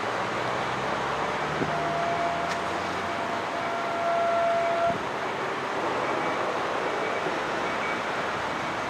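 Steady distant traffic and town noise. A steady whine comes in a little under two seconds in, with a higher one joining it, and both stop together about five seconds in.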